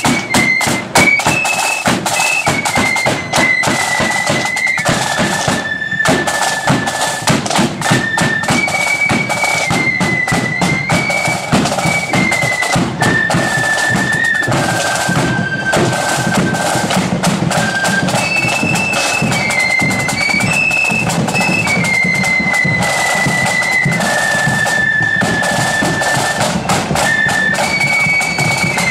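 A marching flute band playing: many flutes carry a high tune together over steady snare drumming and bass drum beats.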